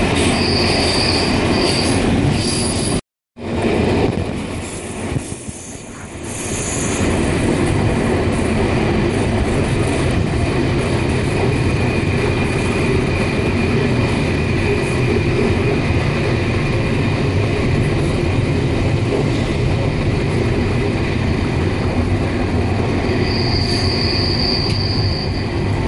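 Electric suburban train running at speed, heard from inside a carriage: a steady rumble and rattle of wheels on the track. A high wheel squeal sounds at the start and again for a couple of seconds near the end. The sound cuts out for an instant about three seconds in.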